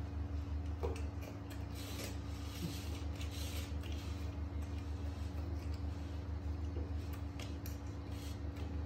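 A steady low mechanical hum with a fast pulsing beat and a steady tone above it. Over it come faint wet crunching and smacking from a young monkey handling and eating watermelon pieces, most around two to four seconds in and again near the end.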